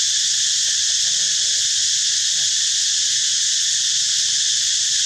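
Steady chorus of insects: a loud, even, unbroken high hiss.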